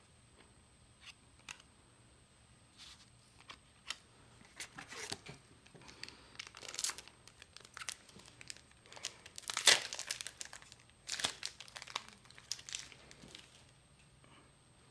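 Plastic booster pack wrappers crinkling and tearing open, in irregular rustles and crackles, loudest about two-thirds of the way through.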